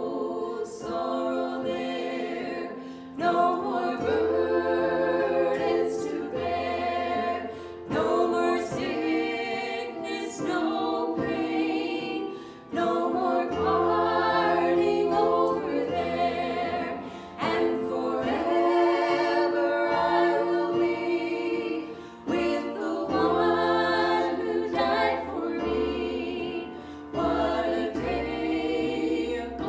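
A choir singing a gospel worship song in harmony over sustained low accompaniment notes, in phrases of a few seconds each with short breaks between them.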